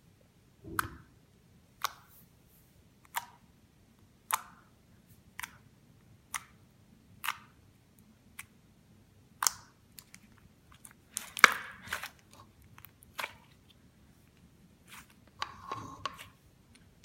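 Clear slime being pressed and stretched by hand, giving sharp little pops and clicks about once a second, with a denser cluster of pops partway through and a longer crackling squish near the end.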